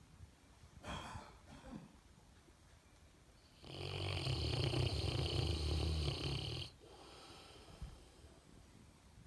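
Snoring in sleep: a short, fainter breath about a second in, then one long, loud rattling snore of about three seconds.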